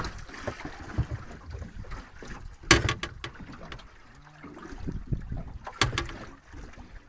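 Wind on the microphone and water around a small fishing boat while a fish is played on rod and reel, with two sharp knocks, the first and loudest about three seconds in, the second near six seconds.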